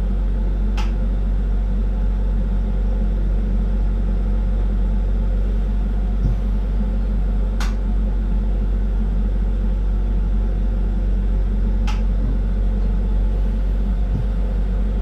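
Glassworking bench torch burning with a steady low rumble, broken by three faint sharp ticks.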